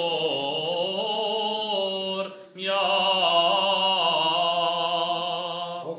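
Solo male voice chanting an unaccompanied Armenian liturgical melody, its pitch wavering and gliding, with a short breath about two and a half seconds in before a long held note.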